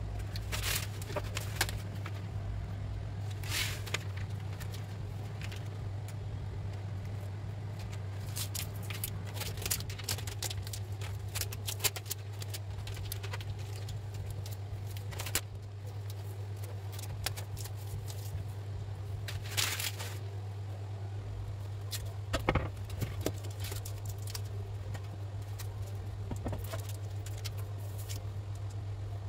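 Plastic self-adhesive vinyl film rustling and crinkling as it is handled and smoothed down by hand onto a countertop, with scattered sharp crackles and taps over a steady low hum.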